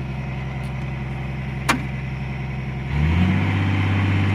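Caterpillar 345 excavator's diesel engine running steadily, then speeding up and getting louder about three seconds in. Its replacement ECM has just been calibrated. A single short chirp comes at about the middle.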